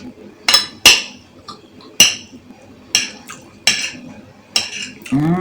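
Cutlery clinking against a bowl of rice and beans during eating, about seven sharp, irregular clinks. Near the end a hummed voice note rises and then falls.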